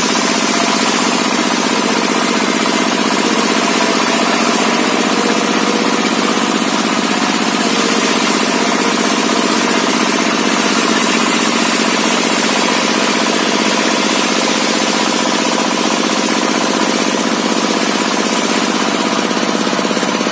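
Large homemade sawmill circular saw running steadily while ripping lengthwise through a log, a loud continuous machine drone with high cutting noise that does not let up.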